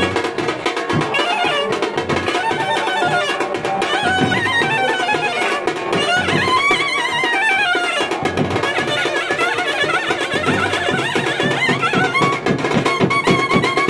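Indian street brass band playing a devotional kirtana: clarinets carry a winding, ornamented melody over a steady beat of snare and bass drums.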